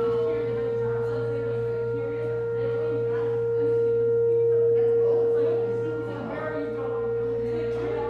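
Outdoor tornado warning siren sounding one steady, unwavering pitch during its scheduled monthly test. Its loudness swells a little about halfway and dips briefly about three quarters of the way through.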